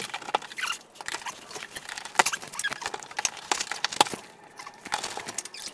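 Irregular small clicks, scrapes and rattles of an old ceiling light box being worked loose above the drywall and its wires being pulled free.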